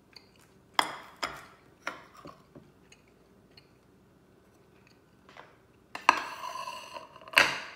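Ceramic plates knocking and clattering as they are handled over and set on a granite countertop: three sharp knocks in the first two seconds, then a longer, ringing clatter about six seconds in and another near the end.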